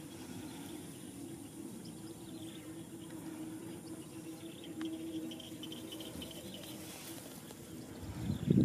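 Faint insect chirping over a low steady hum.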